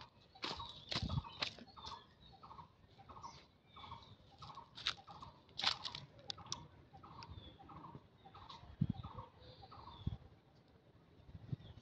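A bird call repeated in a quick even series, about two or three short notes a second, which stops near the end. Scattered sharp knocks and rustles sound among the calls.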